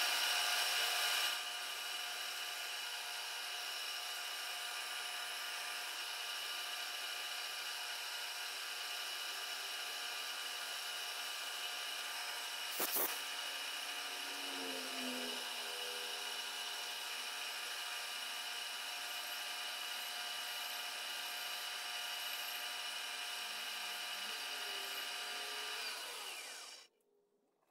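Milling machine spindle running steadily with an end mill, a steady multi-tone whine, with a single sharp click about halfway through; the spindle shuts off near the end.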